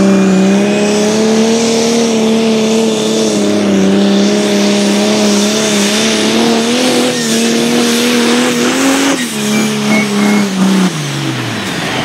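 Pulling tractor's diesel engine running flat out under load as it hauls the weight sledge, its note steady and slowly creeping up in pitch. Just after nine seconds the sound changes abruptly, and near the end the engine note falls away as it winds down.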